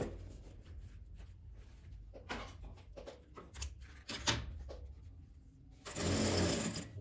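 Sewing machine stitching in two short runs, one ending just as the sound begins and one lasting about a second near the end. In between come soft fabric rustles and small clicks as bias binding is folded and fed under the presser foot.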